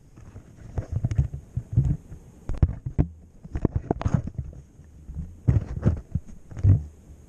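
Handling noise on a camera: hands knocking and rubbing against it, making an irregular series of dull low thumps and scrapes, the loudest near the end.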